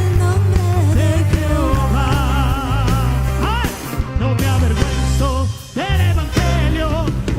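Live tropical-style band playing a praise medley, with a heavy bass line under a wavering melody. The music drops away briefly twice near the middle.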